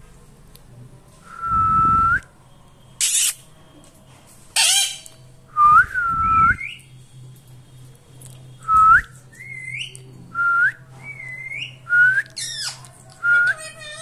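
About nine whistled notes, most held on one pitch and flicking upward at the end, a few gliding up higher, with three harsh screeches from an Indian ringneck parakeet between them.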